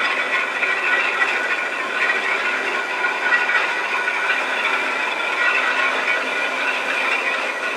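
Railway turntable slowly rotating with an EF81 electric locomotive on it: a steady hiss with several high, even whining tones.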